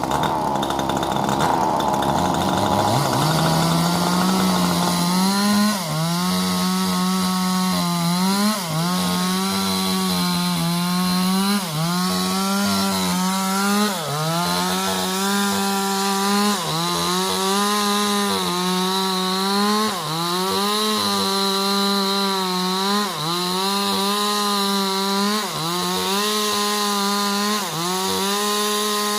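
Two-stroke chainsaw running at full throttle while cutting sengon wood. For the first three seconds it sounds rougher, then it settles into a steady high engine note that sags and recovers about every two and a half to three seconds as the chain is loaded in the cut.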